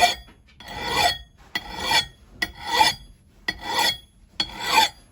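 Hand file rasping across the steel edge of an axe head in steady push strokes, about one a second, six in all; each stroke builds up and stops sharply.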